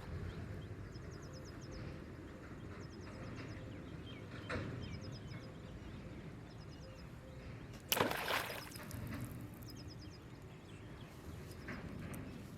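Outdoor ambience: a steady low background with short, rapid trains of high chirps repeating every second or so, and one sudden loud sharp noise about eight seconds in.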